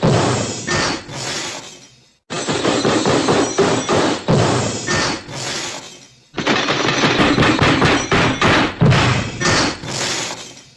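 Cartoon crash sound effect: a dense clattering jumble of breaking glass, metal clangs and thuds that tails off. It is heard as the end of one pass and then two full repeats of about four seconds each, every repeat starting abruptly at full loudness.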